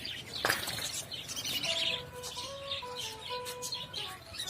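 Many budgerigars chirping and chattering together in quick, overlapping calls, with a sharp rustle about half a second in. A faint, simple stepping tune plays from about two seconds in to near the end.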